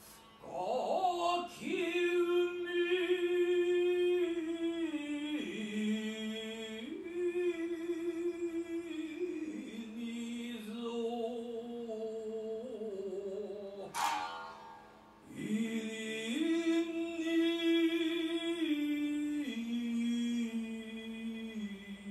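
Biwa narrative chant (biwa-gatari): a male voice sings long held notes that step slowly downward in pitch. Sharp plucked strikes of the Satsuma biwa ring out about a second in and again about fourteen seconds in.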